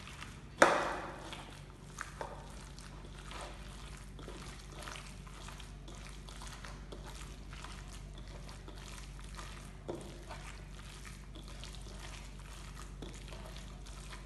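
A hand mixing and kneading a wet mash of soaked bread and chopped vegetables in a bowl, making soft, irregular squelching. There is a sharp knock with a brief ring about half a second in, and smaller knocks later.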